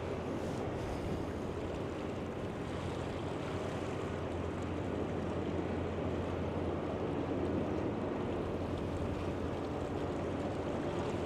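Steady riverside ambience: a constant low engine hum, as from a boat on the river, under a wash of water and wind noise.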